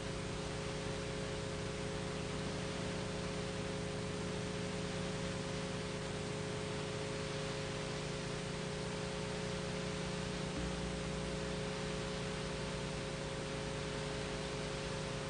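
Steady recording hiss with a low electrical hum, the noise floor of an old analog video recording; no other sound stands out.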